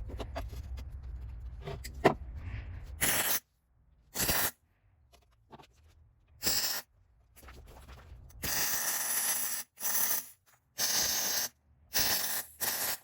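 MIG welder laying short welds, stopping and starting: about nine bursts of crackling hiss, each a fraction of a second to just over a second long, welding a nut onto steel in place of a stud. Before the welding starts, a low rumble with a few sharp clicks.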